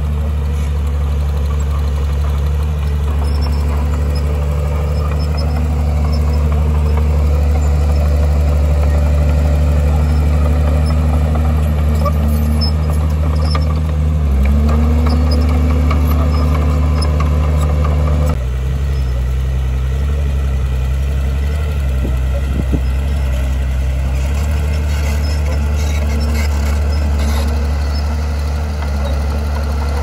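Heavy diesel engine of an earthmoving machine running steadily with a deep drone. The engine note changes abruptly about two-thirds of the way through and then holds steady again.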